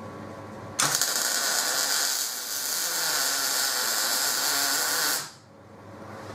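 Electric arc welding a tack weld on a steel mounting plate: the arc strikes suddenly about a second in, runs as a loud, steady hissing noise for about four seconds, then cuts off abruptly.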